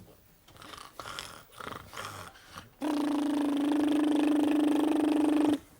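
A man imitating a running shower with his voice into a microphone: a steady buzzing hiss over a low hum. It starts about three seconds in and cuts off suddenly near the end, after a few faint short clicks.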